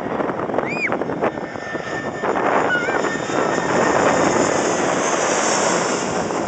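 Airliner passing low overhead on its landing approach: a loud rushing engine noise that swells about two seconds in, with a high whine building toward the end.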